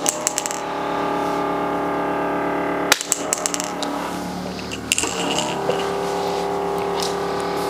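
Sharp metallic clicks from a spring-loaded chiropractic adjusting instrument, in three quick clusters: at the start, about 3 s in and about 5 s in. They sound over background music with sustained chords.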